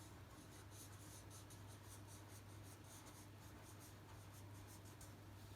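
Faint scratching of a pen writing in quick, irregular strokes, over a low steady hum.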